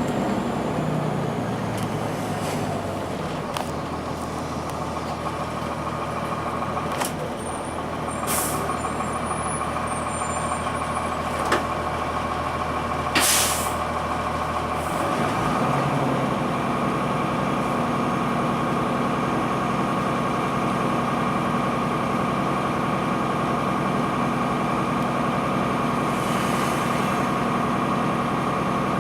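Transit bus's Cummins ISC inline-six diesel running, heard from inside the bus, with two short hisses of air from the air brakes about 8 and 13 seconds in. About halfway through the engine's rumble drops and it settles into a steady idle.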